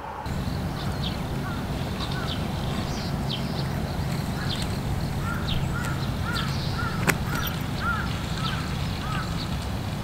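Birds chirping and calling over and over in short notes and quick falling whistles, over a steady low rumble, with one sharp click about seven seconds in.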